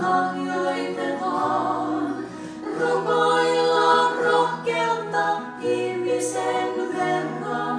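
Three women singing a slow Finnish song in harmony, holding long notes, with a steel-string and a nylon-string acoustic guitar playing along.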